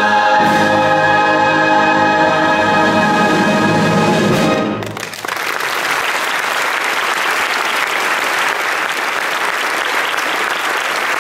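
A choir and orchestra hold a final sustained chord that cuts off about five seconds in, followed by audience applause.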